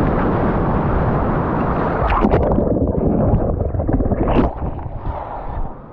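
Rushing whitewater of a river rapid as a kayak drops through it, with sharp splashes about two seconds in. The microphone then goes under the water, and the rush turns muffled and quieter toward the end.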